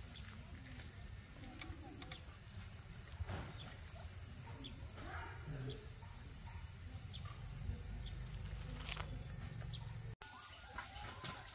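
Outdoor ambience: a steady low rumble and a steady high hum, with scattered light clicks and taps. About ten seconds in the sound drops out abruptly at an edit, and a different outdoor background follows.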